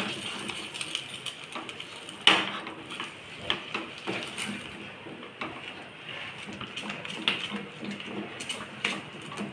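Wooden spatula stirring a thick cornflour-and-sugar halwa mixture in a stainless steel pan, with irregular scrapes and knocks against the pan. The sharpest knock comes a little after two seconds in.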